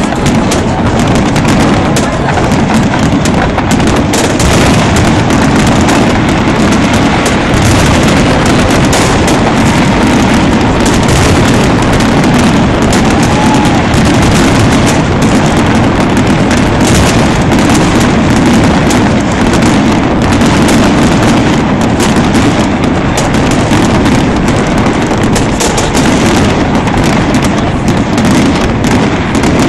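Loud fireworks display: aerial shells bursting and crackling in rapid, overlapping succession, an almost unbroken barrage of bangs.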